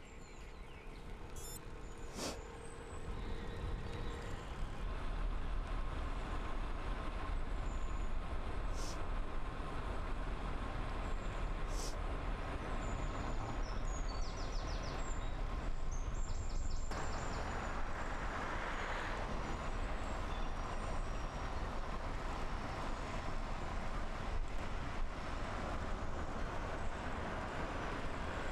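Steady low wind rumble and road noise from riding along, with short bird chirps now and then and a few sharp clicks. The hiss grows brighter about two-thirds of the way through.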